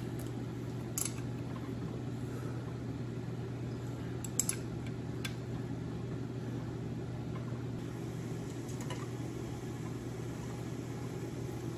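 Steady low machine hum with a few short metallic clicks of a wrench on the engine as a nut is tightened.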